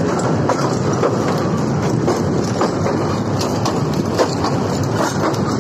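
Passenger train running over a bridge, heard from an open door or window of the carriage: a steady loud rumble of wheels on rail with frequent sharp clicks and clatter.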